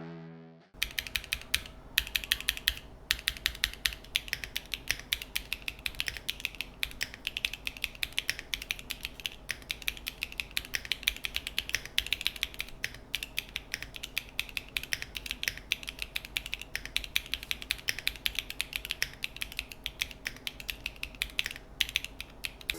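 Typing on a NEO65 mechanical keyboard fitted with KTT Matcha Ice Cream linear switches (POM stems in polycarbonate housings), built without case foam: a steady run of keystroke clacks, several a second, starting just under a second in.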